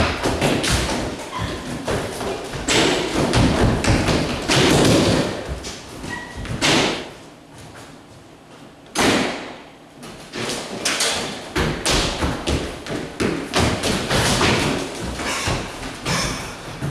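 Repeated thumps and knocks of actors running, jumping and tumbling over furniture on a stage floor. It goes quieter for a couple of seconds about halfway through, then a sharp thud starts another run of thumping.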